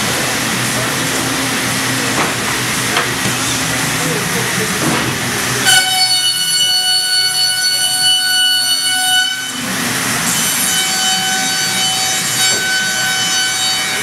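Weeke Venture 107M CNC machining centre running, with steady shop noise. About six seconds in a high-pitched whine of several steady tones starts, breaks off briefly near ten seconds, and then returns.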